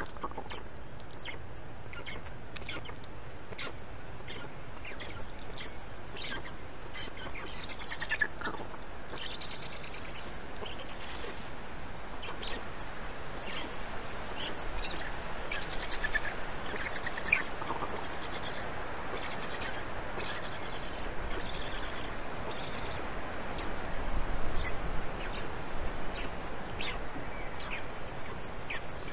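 Birds chirping: many short, high chirps, scattered and overlapping, with a few sharp knocks and a cluster of louder low thumps near the end.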